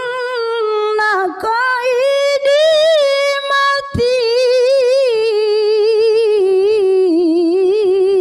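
A woman's solo melodic Quran recitation in the ornamented mujawwad style, drawing out the close of the verse 'wa umli lahum inna kaydi matin' in long melismatic phrases. Short breaths break it about a second and a half in and again near four seconds, then a long held line with a wavering pitch.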